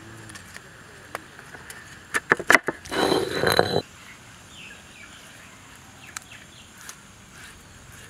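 A kitchen knife chopping raw mango on a wooden board: a few sharp chops in the first three seconds, then a louder rough scraping noise lasting nearly a second. After that only faint bird calls over quiet outdoor background.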